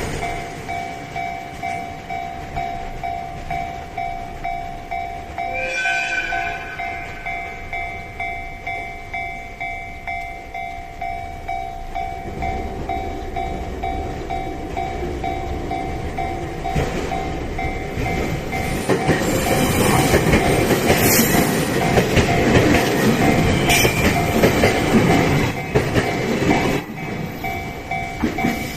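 Level-crossing warning bell ringing in steady, evenly repeating dings. There is a short train horn about six seconds in. From about twelve seconds a train approaches and passes, its running noise and wheel clatter loudest from about twenty to twenty-five seconds, then dropping away while the bell keeps ringing.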